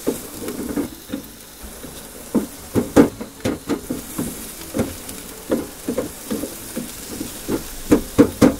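Onions frying in a frying pan, sizzling steadily, while a wooden spatula stirs and scrapes them around the pan in short, irregular strokes. The strokes come more often near the end.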